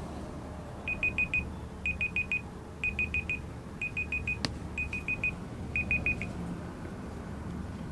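Electronic beeping at one high pitch: six bursts of four or five quick beeps, about one burst a second, like a phone ringtone or alarm. A single sharp click sounds about midway.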